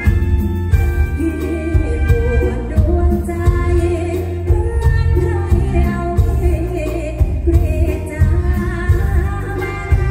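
Live band playing a Thai luk thung song through the stage PA, with a woman singing the melody into a microphone over a heavy, steady bass beat.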